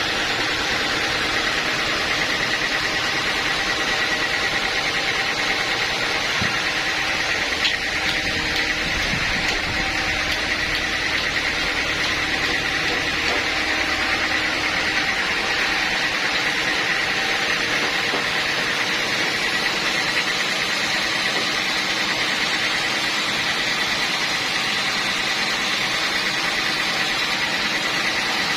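Sawmill machinery running steadily: a constant engine hum with a steady high whine over it. The deepest rumble drops away about halfway through.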